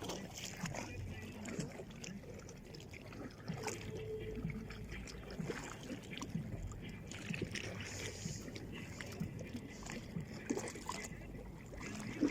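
Red Sea water lapping and sloshing at the shore, with small irregular splashes throughout, and faint distant voices.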